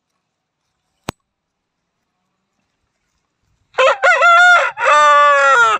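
Aseel rooster crowing: a loud cock-a-doodle-doo in three parts, starting past the middle, the last part the longest and falling slightly in pitch. A single sharp click about a second in.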